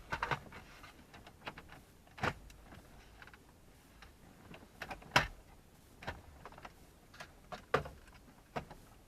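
Scattered sharp clicks and knocks of plastic dashboard trim panels being handled and fitted back into place, with the loudest knocks a little after five seconds and near eight seconds.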